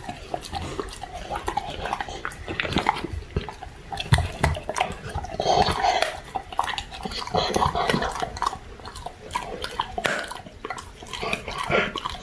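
A Labrador retriever puppy chewing crunchy duck wings: irregular sharp crunches and crackles of the wing bones breaking between its teeth, with wet mouth noises in between.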